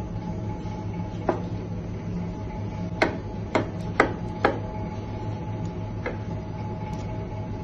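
Chef's knife slicing through a lemon and knocking on a plastic cutting board: six sharp taps, four of them in quick succession midway, over a steady low hum.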